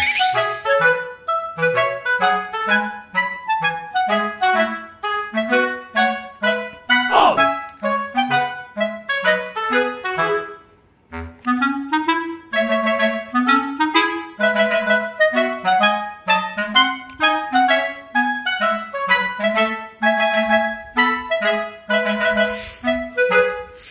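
Background music: a melody of short, separate notes over a moving bass line, with a brief falling sweep about seven seconds in and a short break in the music about ten and a half seconds in.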